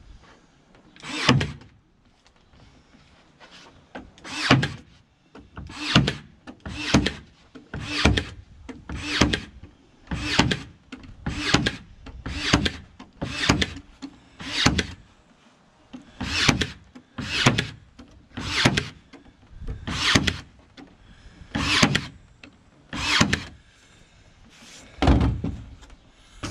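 Ryobi 18V One+ AirStrike cordless brad nailer firing 18-gauge brads into wood, about twenty sharp shots at roughly one a second, with a couple of short pauses.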